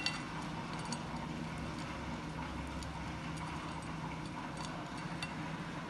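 Ground walnut crumbs sprinkled by hand onto a ceramic plate, landing as a few faint, scattered ticks over a steady low room hum.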